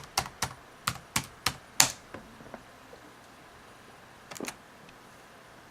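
Keys typed on a laptop keyboard: a quick run of about eight sharp clicks in the first two seconds, then a couple more about four and a half seconds in.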